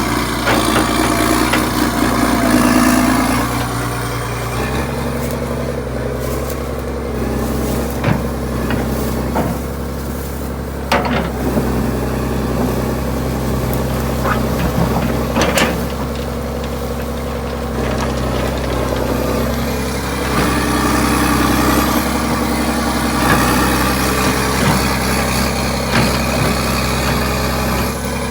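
John Deere 790 excavator's diesel engine running at low throttle while the machine digs, with a few sharp clanks from the working excavator along the way.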